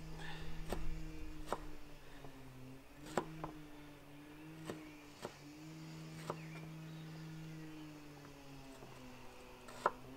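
Kitchen knife tapping on a plastic cutting board while slicing a red pepper into strips: about eight sharp, irregular taps. Under them a lawnmower engine runs steadily in the background, its pitch wavering slightly.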